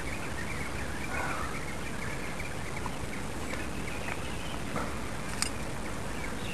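Outdoor ambience: a steady hiss with scattered faint, short high chirps and a single sharp click about five seconds in.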